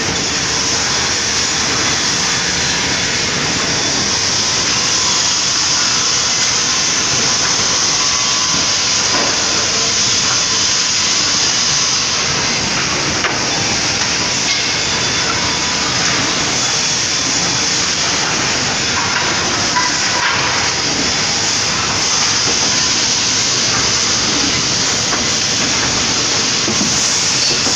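High-speed woodworking cutting machine running continuously, a loud, even hissing machine noise with a few faint ticks.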